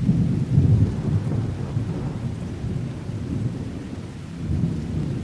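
Rolling thunder from a thunderstorm: a deep rumble, loudest in the first second, slowly dying away, then swelling again briefly near the end.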